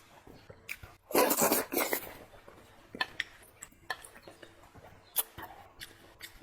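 Close-miked eating of stewed fatty pork belly with pickled cabbage: a loud wet mouthful about a second in, then scattered small smacks and clicks of chewing and utensils.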